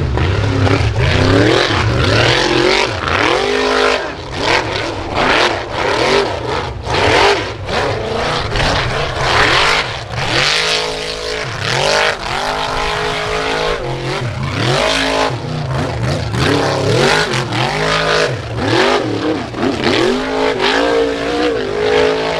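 Formula offroad buggy's racing engine revving hard in repeated throttle bursts, its pitch climbing and dropping again every second or two as the tyres spin on a steep loose-dirt hill climb.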